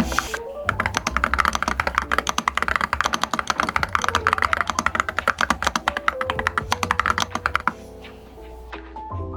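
Rapid typing on a mechanical keyboard, a fast run of key clacks that stops about three-quarters of the way in, over background music.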